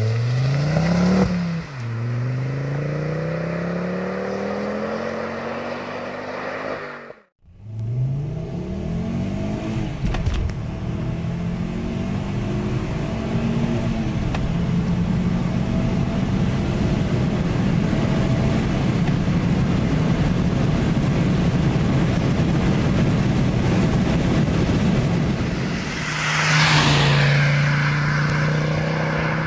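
Ford Focus ST Mk2's turbocharged five-cylinder engine through a Mongoose Section 59 exhaust, accelerating hard: the pitch climbs, drops at an upshift and climbs again. After a sudden break comes a long high-rev pull heard from inside the cabin, then the car passes close by near the end.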